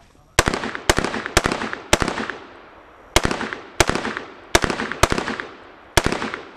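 AR-15 rifle firing a string of aimed shots at close range: four shots about half a second apart, a short pause, then five more at a slightly slower pace. Each shot leaves a brief echoing tail.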